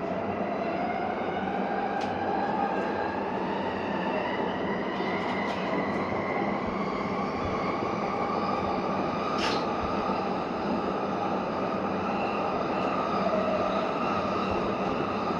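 Yamanote Line electric train running, heard from inside the car. A motor whine climbs slowly in pitch as the train picks up speed, over a steady rumble of wheels on rail, with an occasional click.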